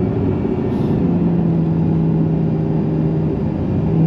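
Lotus Emira's mid-mounted supercharged 3.5-litre V6 running steadily at moderate revs in sport mode, heard from inside the cabin. The note settles slightly lower about a second in, eases off briefly near the end, then pulls again.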